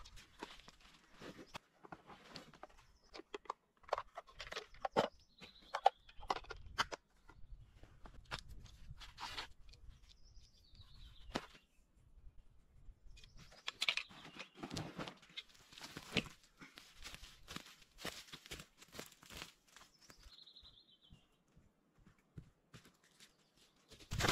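Irregular crunching, rustling and snapping of dry sticks and leaves being handled, with a few short falling bird chirps.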